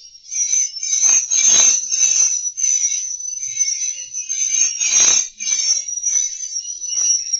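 Swiftlet twittering: a dense, continuous stream of rapid high-pitched chirps, the kind of swiftlet call-and-roost lure sound used to draw swiftlets into a swiftlet house, with denser surges about one and a half and five seconds in.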